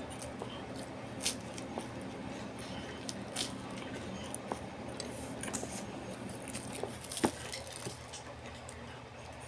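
Eating sounds: scattered soft clicks and wet squishes of food and utensils, over a faint steady low hum.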